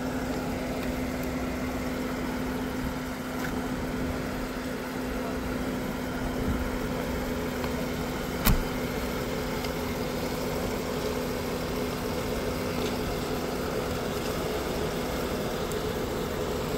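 Car engine idling steadily, a low even hum, with a single sharp knock about halfway through.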